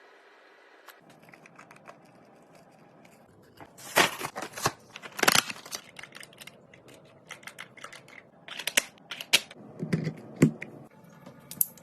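Kitchen items and packaging being handled and set down in an irregular string of sharp clicks, taps and rustles. The first few seconds are quieter, and the loudest taps come about four and five seconds in and again around nine to ten seconds.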